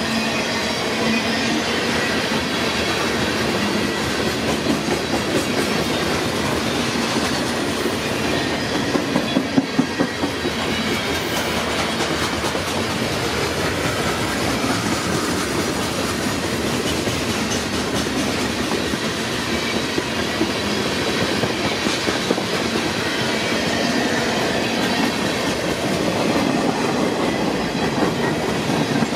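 Freight train cars rolling past at steady speed, a continuous rumble with a rapid patter of wheel clicks over the rails.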